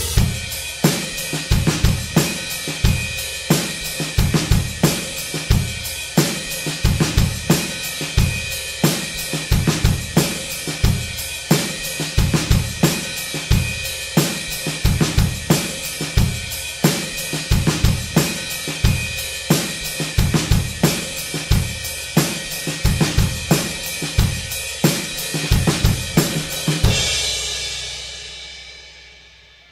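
Music carried by a drum kit: a steady beat of kick and snare under continuous cymbals, fading out over the last two or three seconds.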